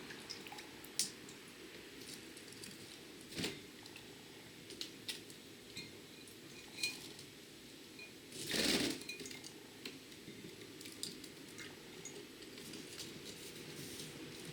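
Young budgerigar bathing in a water dish: scattered light taps and clinks against the dish, with one louder brief splash about eight and a half seconds in.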